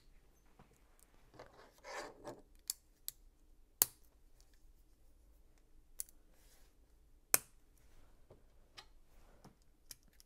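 Plastic Lego pieces being handled and clicked together: a brief rustle of pieces about two seconds in, then scattered sharp clicks, the two loudest about four and seven seconds in.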